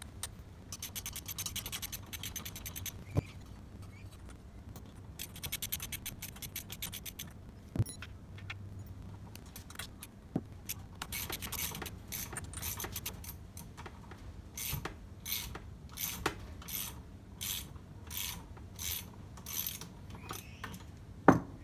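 A ratchet wrench undoing the bolts on a mower engine's clutch, clicking in quick runs, then in slower, evenly spaced clicks. A few metal knocks come in between, and a loud knock near the end is the loudest sound.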